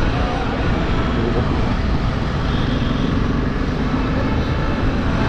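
Motorcycle engine running steadily at low speed, mixed with a constant low rumble of wind and road noise.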